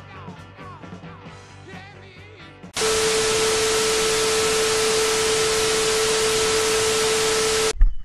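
A quieter rock song with singing, then about three seconds in an abrupt switch to loud TV-static hiss with a steady tone under it: a no-signal glitch sound effect. It lasts about five seconds and cuts off suddenly near the end.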